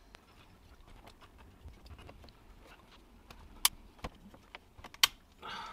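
Small plastic steering-wheel button and paddle-shifter parts handled and pressed together: faint scratching and light ticking, with two sharp clicks, one near four seconds in and one about five seconds in, as the paddle assembly's pins and clip snap into the button.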